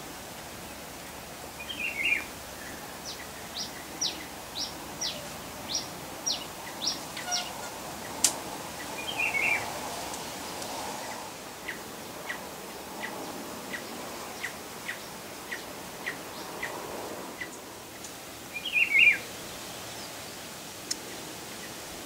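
Wild birds calling. One gives a repeated series of short, high, falling notes about two a second. Another bird gives a brief warbled call three times, loudest near the end.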